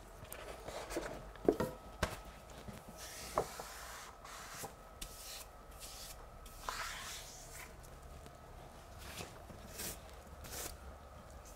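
Wallpaper brush swept over a freshly pasted paper backscene on a wall: soft, irregular rubbing strokes, with a few light knocks in the first few seconds.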